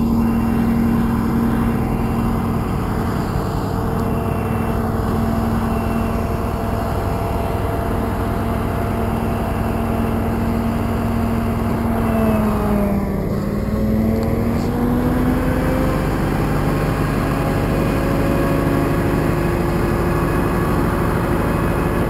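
Heavy truck's diesel engine running steadily while pulling a loaded container trailer. About halfway through its pitch drops, then climbs back up.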